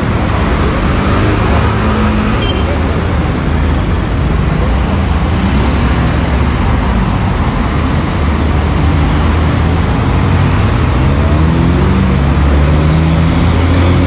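Busy street traffic: a steady, loud din of car and vehicle engines running and passing by.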